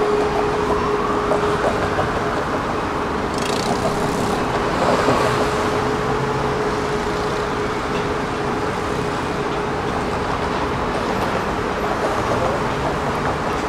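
Electric tram running along its track: a steady rumble with a constant motor hum and a whine that glides down and up in pitch. A short hiss comes about three and a half seconds in.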